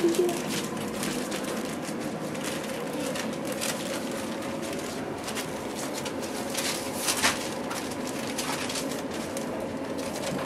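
Boerboel puppies scrabbling about on newspaper: the paper rustling and crinkling under their paws over a steady low hum, with a sharper crackle a few seconds before the end.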